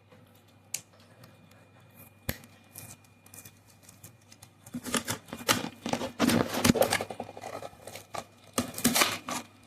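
A toy car's blister-card packaging being opened by hand: a few sharp clicks at first, then about five seconds of dense plastic crackling and card rustling.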